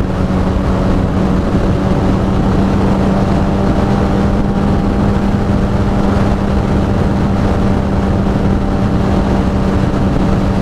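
Suzuki GSX-R750 inline-four engine running at a steady highway cruise through a short aftermarket exhaust, holding one even pitch, with rushing wind and road noise around it.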